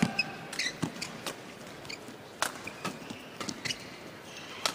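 Badminton doubles rally: sharp racket strikes on the shuttlecock at irregular intervals, mixed with short squeaks of players' shoes on the court.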